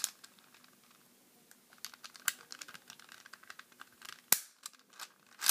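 Plastic clicks and snaps from a V-Cube 4x4x4 puzzle cube as its pieces are worked and an edge piece is pressed back into place: scattered light clicks, with one sharp snap a little over four seconds in.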